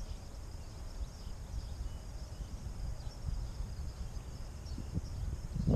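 Outdoor ambience: an uneven low rumble of wind on the microphone, with faint high insect chirring in the background.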